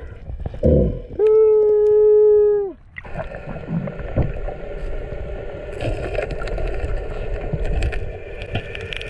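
Sound picked up by an underwater camera: early on a muffled, held tone of about a second and a half, then steady churning water noise with faint crackles as the camera moves along the seagrass.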